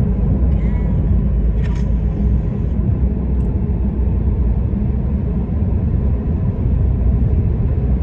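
Steady low rumble of a car's engine and tyres heard from inside the cabin while driving, with a light click about two seconds in.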